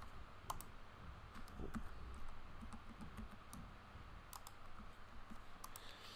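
Computer keyboard keys being pressed: a scattering of light, irregular clicks over faint room hiss.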